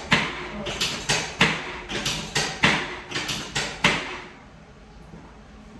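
A rapid run of about a dozen sharp knocks during a chiropractic hip adjustment, coming two or three a second at an uneven pace and stopping about four seconds in.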